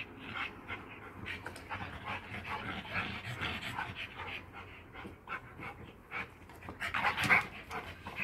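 Dogs panting hard during play, breath after breath, with a louder burst of breathing about seven seconds in.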